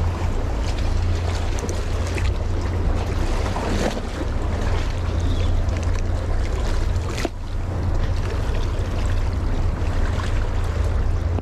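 Wind buffeting the microphone: a steady low rumble under an even rushing hiss, with a few faint clicks.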